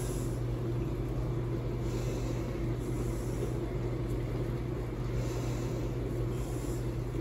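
Steady low mechanical hum, with soft hissy shakes every second or two as dry rub is shaken from a jar onto raw pork shoulder.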